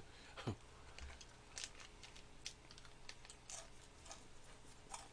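Faint, irregular crisp clicks and crackles of a crunchy pineapple-jam pastry being eaten, with the sharpest click about half a second in.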